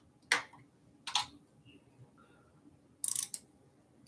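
A few sharp clicks from a hand tool tightening the display mount clamp on an e-bike handlebar: one shortly in, another about a second in, and a quick cluster about three seconds in.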